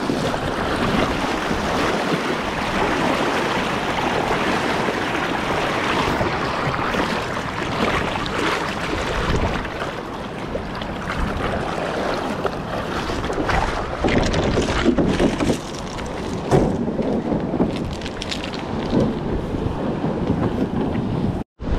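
Fast, strong river current rushing and splashing around people wading across it, with wind buffeting the microphone.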